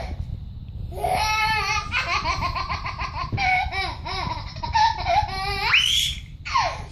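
Baby laughing: after a short pause, a run of quick belly-laugh bursts, ending in a rising squeal about six seconds in.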